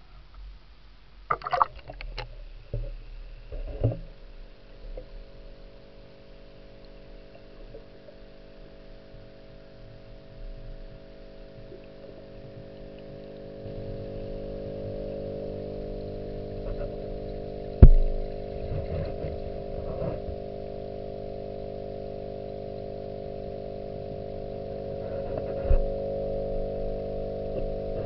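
Muffled knocks and rattles as an action camera in a waterproof housing is handled and dipped into a pond, then a steady low hum heard underwater through the housing, with a sharp knock against the housing about 18 seconds in and another near the end.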